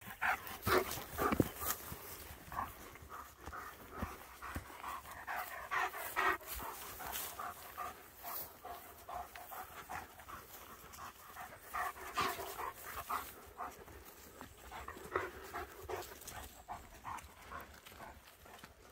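German shepherd dogs panting close by in short, irregular breaths, with scattered rustles and knocks from movement through long grass.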